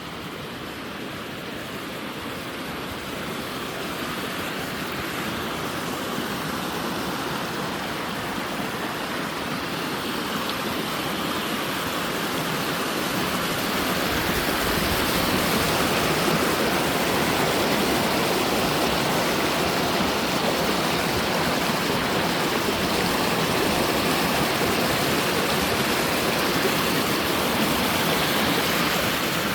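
Rushing water of a river, a steady hiss without distinct splashes, growing louder over about the first fifteen seconds and then holding steady.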